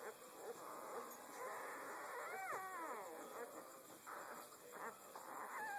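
Five-day-old German Shepherd puppies whimpering and squeaking faintly. One clear squeal slides down in pitch a little over two seconds in, and a shorter one comes at the very end.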